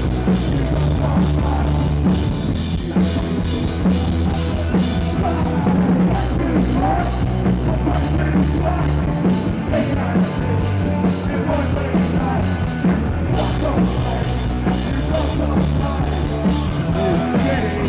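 Live punk rock band playing at full volume: electric guitars over a pounding drum kit.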